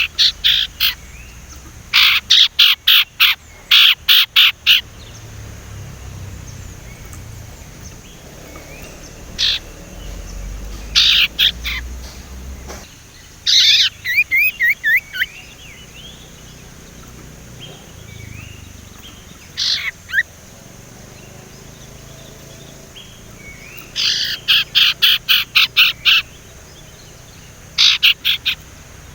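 Sirtu songbird chattering in loud bouts of fast, sharp repeated notes, each bout lasting a second or two and coming every few seconds, with a short run of thin rising whistles about fourteen seconds in.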